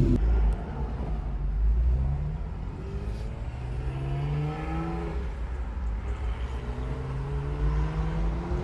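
Car engine accelerating through the gears, heard from inside the cabin: its pitch rises, drops back and rises again several times over a steady low road rumble.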